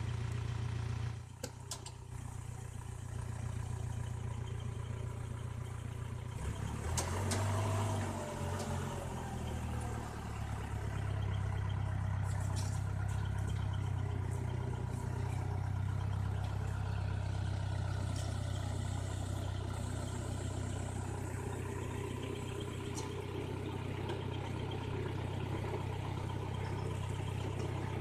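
Engine running steadily at idle, with a brief rise in speed about seven seconds in and a few sharp clicks and knocks.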